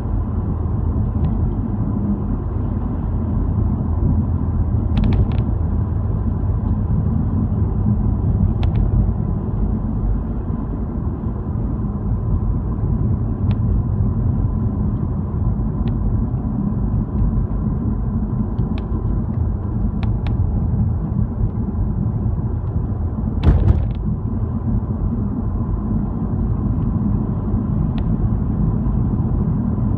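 Steady engine and road rumble of a moving car heard from inside the cabin, with scattered faint clicks and one short, louder knock about two-thirds of the way through.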